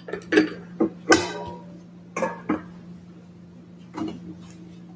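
Communion trays and cups being handled on the table: about half a dozen irregular clinks and knocks of metal and glassware, the louder ones ringing briefly. A steady low electrical hum runs underneath.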